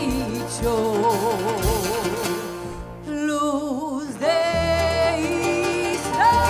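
A woman singing a Ladino song with a live band, holding long notes with wide vibrato. Near the end she slides up to a long high held note.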